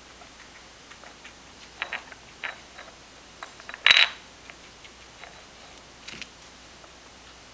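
Guinea pigs nudging the hard plastic cups of a treat-puzzle toy on a wooden floor, making scattered light clicks and knocks, with one sharp clatter about four seconds in as a cup is bumped.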